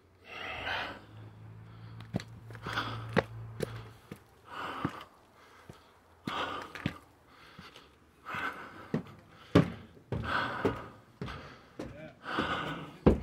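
A person breathing heavily in and out, about once a second, while walking and climbing steps, with sharp footfalls between the breaths.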